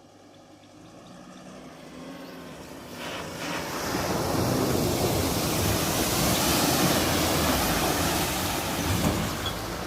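Wind rushing over the microphone, fading in over the first four seconds and then steady and loud.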